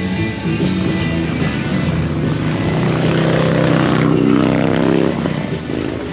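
Motorcycle engine running, its note rising as it revs from about three seconds in and dropping off a little after five.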